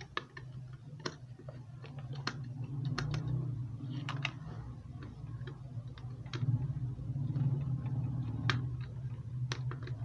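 Small screwdriver turning a tight screw in the plastic battery cover of a toy washing machine: irregular clicks and light scrapes, a few sharp ones standing out, over a steady low hum.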